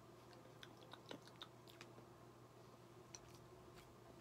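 Faint mouth clicks and swallowing sounds of a person drinking from a plastic bottle, a handful of small clicks in the first two seconds and one more past the three-second mark, over a faint steady hum.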